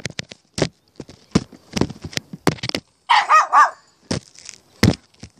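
Puppy barking in short high yips, a quick run of three or four about three seconds in, among scattered short knocks and clicks.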